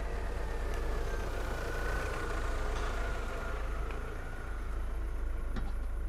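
Car engine idling with a steady low rumble.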